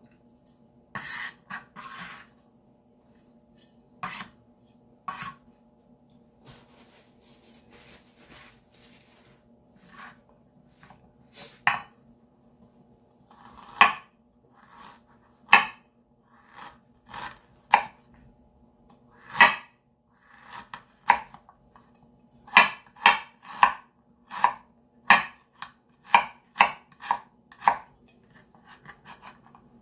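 Chef's knife slicing fresh ginger root on a bamboo cutting board: sharp knocks of the blade striking the board, sparse at first, then a steady run of about two a second in the last part. A faint steady hum lies underneath.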